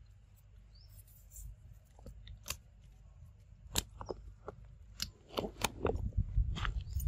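Dry leaf litter and twigs crackling and snapping underfoot: scattered sharp clicks that come thicker from about five seconds in, over a low rumble that grows near the end.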